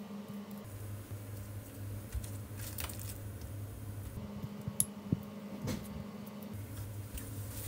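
Soft, wet handling of napa cabbage leaves and raw pork belly slices being layered on a wooden cutting board, with a few light clicks about halfway through and a low steady hum underneath.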